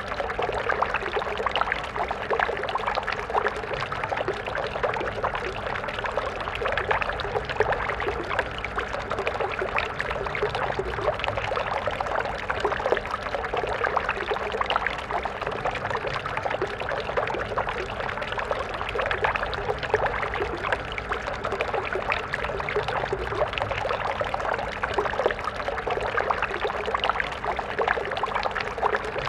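A stream of water flowing and splashing steadily, a dense babble without pauses.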